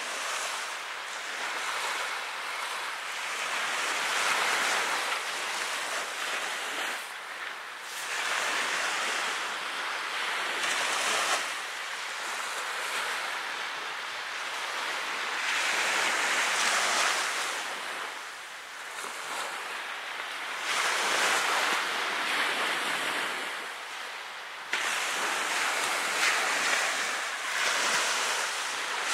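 Small ocean waves breaking and washing up a sandy beach, the surf swelling and fading every five or six seconds.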